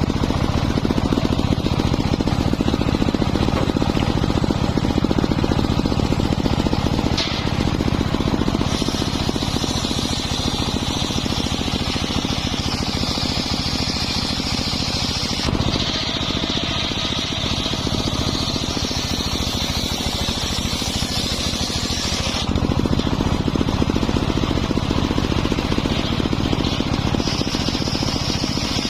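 Homemade circular saw running steadily with a pulsing power-unit drone underneath, its blade whining as it cuts wood. The whine rises and falls in pitch in long stretches, changing about 9, 15, 22 and 27 seconds in as each cut goes on.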